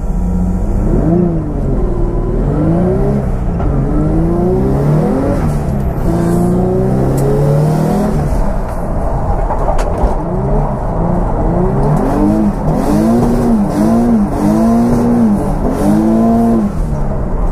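Drift car's engine revving hard through a run, its pitch rising and falling over and over as the throttle is worked. The swings get shorter and quicker, about one a second, for a few seconds near the end.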